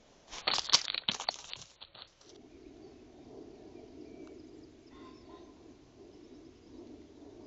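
A hare nosing and rubbing against the trail camera: a quick run of loud scrapes and clicks on the camera body for about two seconds. Then a steady low hiss with a few faint bird chirps.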